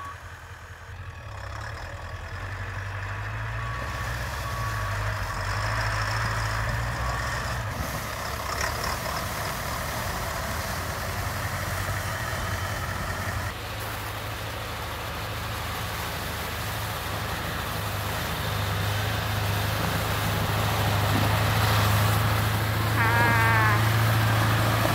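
Engine of a heavy pickup-based camper truck running as it drives through snow: a steady low drone that grows louder as the truck comes closer, with a few short squeaky chirps near the end.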